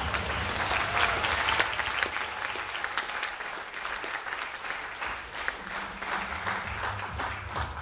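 Audience applauding, loudest in the first couple of seconds and thinning out towards the end.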